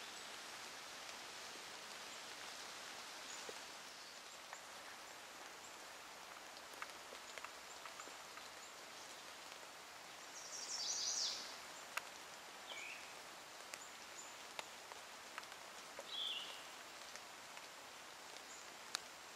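Faint woodland ambience: a steady soft hiss with scattered small ticks, broken by a short cluster of high bird chirps about ten seconds in and a briefer high call near sixteen seconds.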